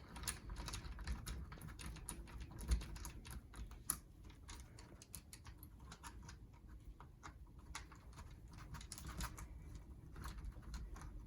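Light, irregular clicks and taps of a spanner tightening the clamp's nylock nuts onto their bolts, with one slightly louder knock early on.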